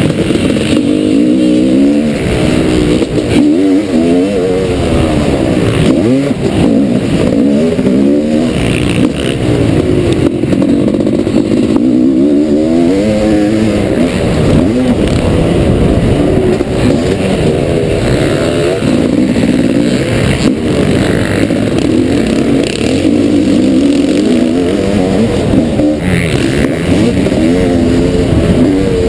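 1989 Honda CR500's two-stroke single-cylinder engine, heard from on board the bike, revving hard and dropping back again and again as the rider accelerates and eases off over the motocross track. The engine note rises and falls in pitch every second or two.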